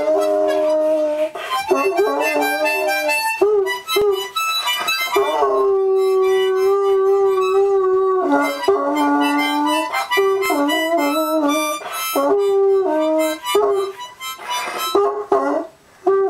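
A harmonica blown by a toddler in uneven, breathy chords, with a large dog howling along in long held notes.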